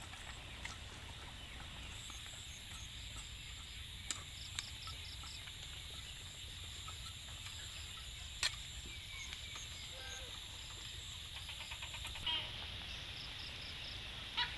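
Quiet rural background with a few sharp clicks, and a chicken clucking briefly a few times late on.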